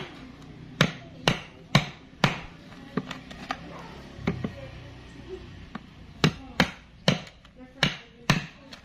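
Repeated sharp hammer strikes on hard wood, about two a second, with a gap of a second or so in the middle.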